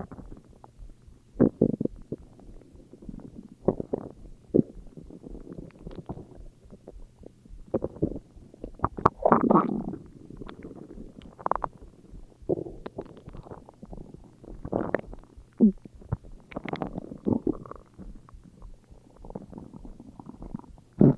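Human stomach growling: a string of irregular gurgles and rumbles, the loudest about nine to ten seconds in, with a short squeak a little past the middle.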